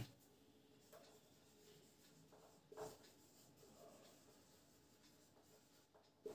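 Faint scratching strokes of a marker writing on a whiteboard, a few separate strokes against near silence.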